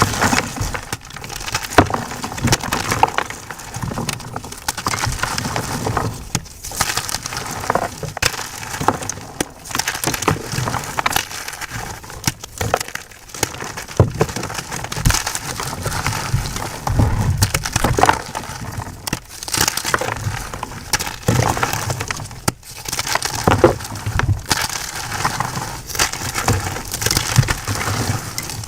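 Blocks of white gym chalk being crushed and crumbled by hand, a steady run of dry, crisp crunching and crackling.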